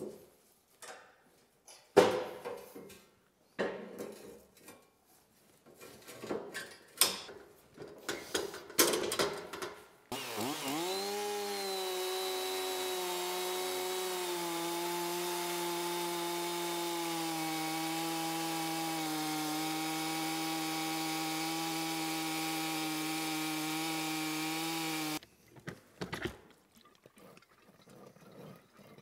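Metal knocks and clanks as the steel legs of a chainsaw-mill frame are moved down a hole, with one sharp knock about 2 s in. About 10 s in, a Stihl two-stroke chainsaw mounted in the mill starts running at full throttle through a Douglas fir burl. It holds a steady pitch for about 15 s, then cuts off abruptly.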